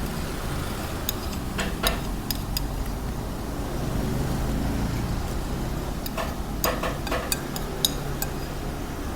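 Spoon clinking lightly against a plate while eating fried rice, in a few scattered taps with a small cluster a little past the middle, over a steady low rumble of street traffic.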